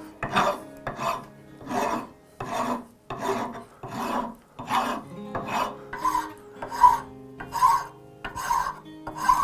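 Hand file drawn back and forth over a hardwood screwdriver handle scale in steady scraping strokes, about one every three-quarters of a second, the later strokes sharper, as the shape is refined.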